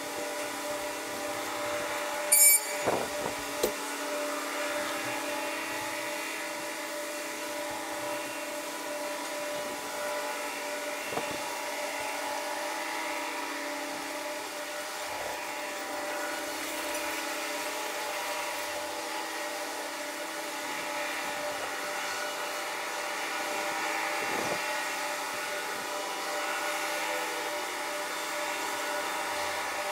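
Ship engine and harbour noise played back eight times fast, heard as a steady high whine made of several fixed tones. A brief cluster of sharp clicks comes about two and a half seconds in.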